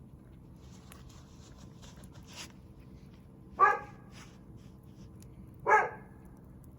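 A dog barks twice, two short loud barks about two seconds apart, over the faint crackle of a wood fire.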